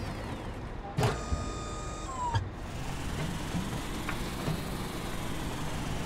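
Cartoon machine sound effects: a sudden whoosh about a second in, then an electronic hum of several steady tones for about a second and a half, ending in a short falling tone and a click. After that a car engine runs quietly.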